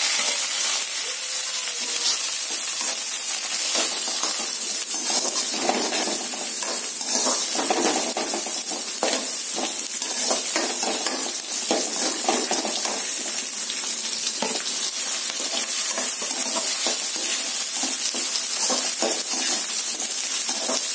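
Sliced onions and curry leaves sizzling in hot oil in an aluminium kadai, with the repeated scrape and clink of a perforated metal ladle stirring them.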